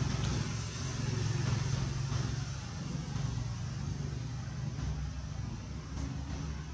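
An engine running steadily out of sight, a low hum with a hiss above it.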